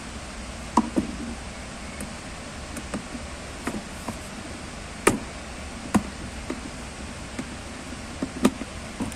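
Irregular sharp clicks and knocks of hard plastic as the moulded seat panel of a ride-on electric toy car is pressed into place and screwed down with a screwdriver. A steady hiss lies underneath.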